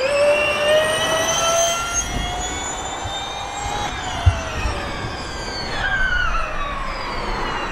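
Porsche 99X Electric Formula E car's electric drivetrain whining, rising in pitch as the car accelerates and falling as it slows. A single thump about halfway through.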